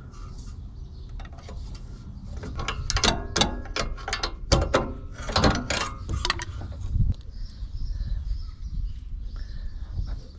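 Metal hand tools working a car's front subframe bolts: a run of irregular metallic clicks and clanks in the middle, typical of a wrench or ratchet on steel, as the subframe is loosened and lowered.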